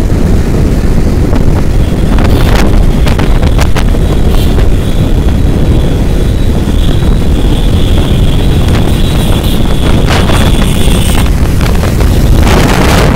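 Wind buffeting the microphone over the steady rumble of a moving vehicle on the road. A faint high steady whine runs through most of it and cuts off near the end.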